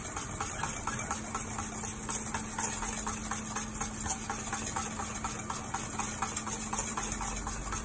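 Wire balloon whisk beating egg yolks and cooking oil in a stainless steel bowl, its wires ticking against the metal about four or five times a second. It is the sound of yolk and oil being whipped into a mayonnaise emulsion.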